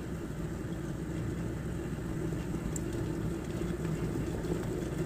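Glass electric kettle at the boil: a steady rushing, bubbling noise of water boiling hard, with a faint low hum under it.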